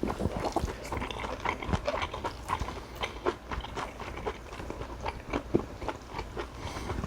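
A person chewing food, with many short, irregular mouth clicks and smacks.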